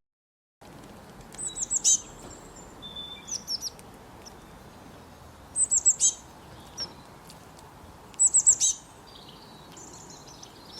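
A small songbird repeating a short phrase of quick, high, falling notes three times, about three seconds apart, with softer chirps in between, over a steady background hiss.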